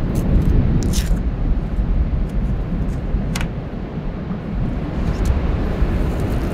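Wind buffeting the microphone, a loud, unsteady low rumble, with a couple of light clicks from a knife and plate as a bagel is spread, about a second in and again past three seconds.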